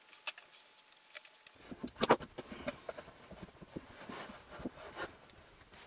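Dressmaking shears snipping through a wool coat's seam allowance, with the cloth rustling as it is handled. Scattered sharp clicks, the loudest cluster about two seconds in.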